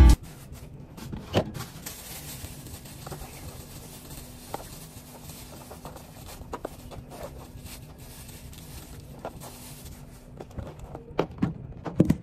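Black plastic bags crinkling and rustling as food is pulled out of them into a plastic tub, with scattered soft clicks and knocks. Near the end come a few louder bumps as the phone is handled.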